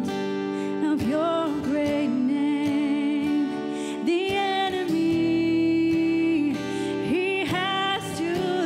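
A woman singing a worship song into a microphone over instrumental accompaniment, holding long notes with vibrato.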